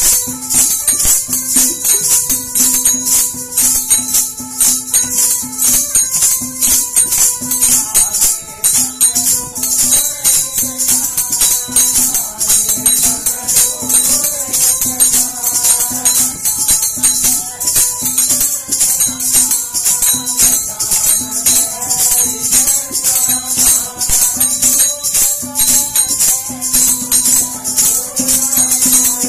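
Jingling percussion from a plastic hand tambourine and a chimta, the brass jingles shaken and struck in a fast, steady beat as accompaniment to a devotional folk song.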